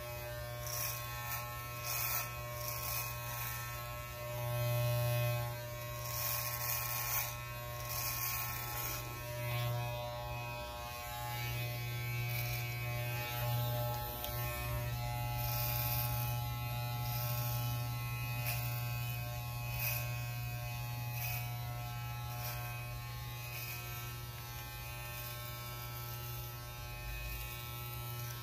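Corded electric hair clippers running with a steady buzz, with short louder rasps now and then as they are pushed over a closely shaved scalp.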